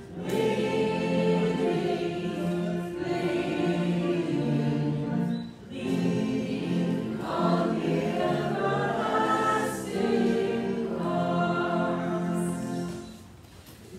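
Choir singing in long, held phrases, with a brief break about halfway through. The singing fades out shortly before the end.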